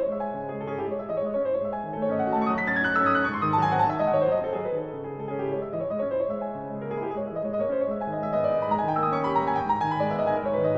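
Steinway grand piano played solo: a stream of fast notes over lower held notes, sweeping downward about two seconds in and climbing back up near the end.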